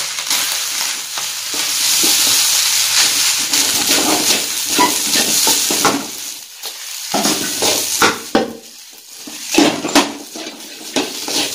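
Fried rice and greens sizzling in a wok as they are stir-fried with a wooden spatula, which scrapes and knocks against the pan again and again. The sizzle is strongest in the first few seconds, and a few sharper knocks come near the end.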